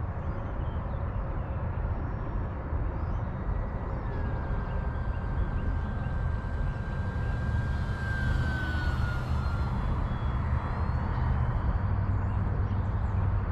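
Electric motor and propeller of an RC Cessna 182 model plane flying. Its thin whine comes in about four seconds in, holds steady, then dips in pitch and fades as the plane passes, over a steady low rumble.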